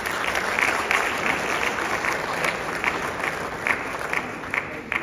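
Audience applauding, with a few louder single claps standing out; the applause fades away near the end.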